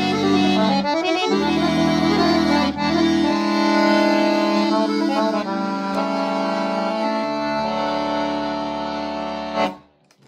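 Beltrami piano accordion played with a tone-chamber (cassotto) register combination: a right-hand melody over held chords and bass notes. It closes on a final accented chord that cuts off abruptly just before the end.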